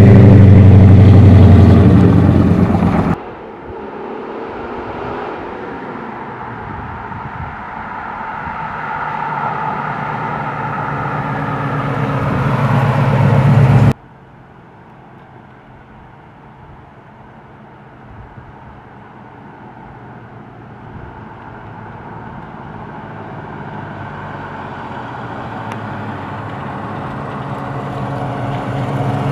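1966 Pontiac GTO's V8 running loud right at the exhaust for about three seconds. It then cuts to the engine heard from farther off, growing steadily louder as the car approaches. A second cut drops it to faint, and it builds slowly again as the car comes closer.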